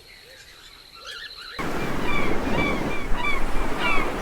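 Faint chirping, then from about a second and a half in a loud rushing noise like wind on the microphone or surf, under a run of short, high, falling animal calls, about two or three a second.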